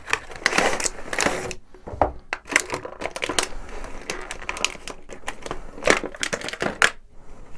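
A cardboard toy box being opened and a moulded plastic packaging tray slid out and handled: an irregular run of scrapes, rustles and sharp clicks.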